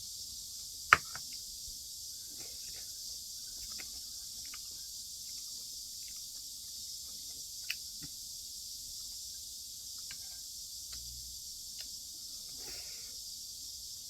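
Eating sounds: utensils clicking against dishes, one sharp click about a second in and another near the middle, with faint chewing, over a steady high-pitched hiss.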